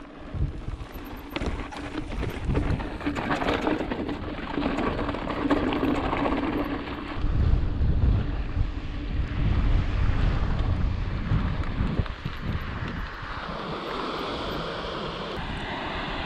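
Wind buffeting the microphone in uneven low gusts over a steady rushing hiss.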